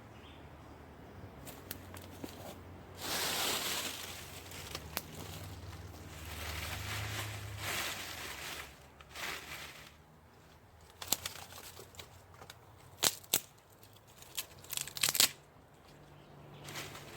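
Rustling and crinkling handling noises in bursts, then a run of sharp clicks and knocks, over a faint low steady rumble.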